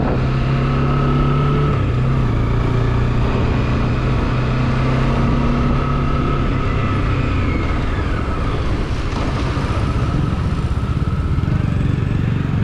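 Bajaj Dominar 400's single-cylinder engine running steadily as the motorcycle is ridden, over a steady rush of riding noise; the engine note grows weaker in the second half.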